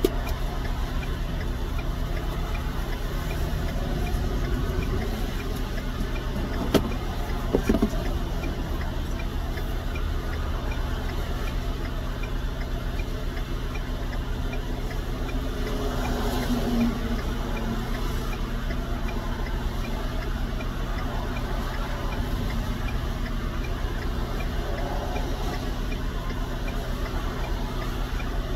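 Steady low hum of a truck engine running, heard inside the cab. About seven seconds in comes a sharp click, then two more clicks a second later, as the plastic lid comes off a Pringles can.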